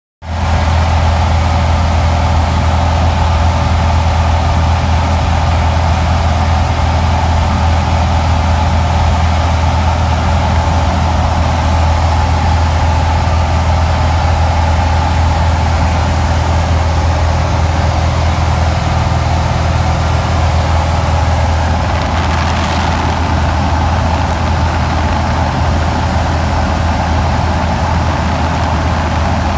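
Piston engine and propeller of a small single-engine plane in flight, a loud steady drone heard inside the cabin. It eases slightly about three-quarters of the way through.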